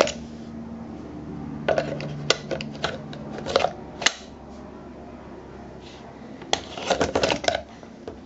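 Pistol being drawn from and pushed back into a hard polymer duty holster, giving groups of sharp plastic clicks and scrapes: one at the start, a run between about two and four seconds in, and a quick cluster near the end.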